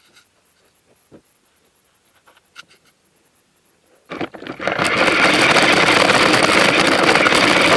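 A remote-controlled truck's motor and drivetrain start abruptly about four seconds in and run loud and steady as it drives off. Before that there are only a few faint taps.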